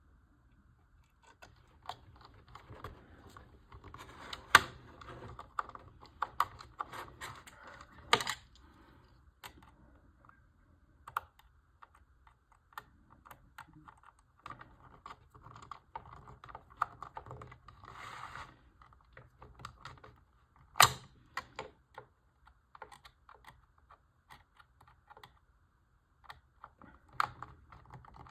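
Small plastic model parts being handled and fitted together on a work surface: irregular light clicks and taps, with a few sharper knocks about four, eight and twenty-one seconds in.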